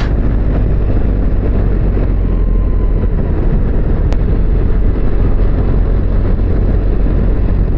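BMW R1300GS motorcycle riding along at steady speed: a continuous rush of wind and road noise over a deep, steady low rumble.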